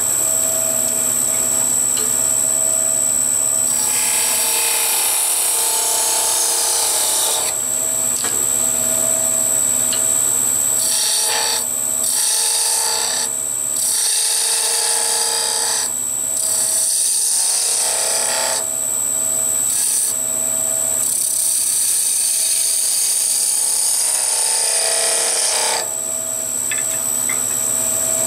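Wood lathe running with a steady hum and whine while a hand-held turning chisel cuts the face of a spinning wooden top body. The cut makes a hissing scrape that comes and goes in several passes of a few seconds each.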